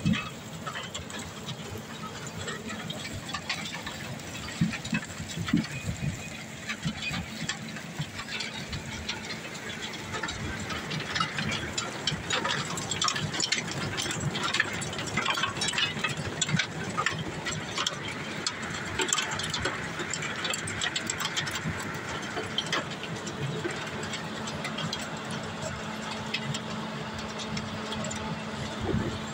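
Rubble Master RM 80GO mobile impact crusher running and crushing stone. A steady machine hum runs underneath, with many sharp clattering knocks of rock striking steel as material passes through the crusher and off the conveyor.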